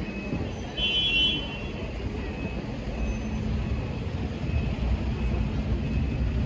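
Low, steady rumble of motor traffic, with a brief high-pitched chirp about a second in.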